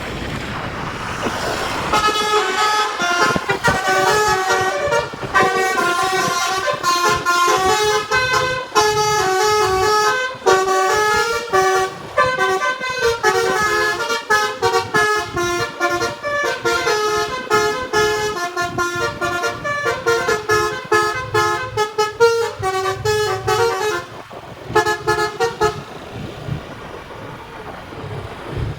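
An Indonesian bus's telolet basuri horn, a multi-note musical horn, playing a fast tune of short, quickly changing notes. It starts about two seconds in, after a rushing noise, and stops a few seconds before the end.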